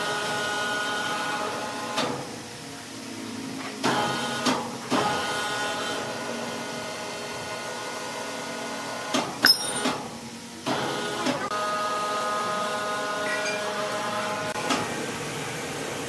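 Steady electric motor whine from sawmill machinery that stops and starts again several times, with a few sharp metallic clanks, the loudest about halfway through.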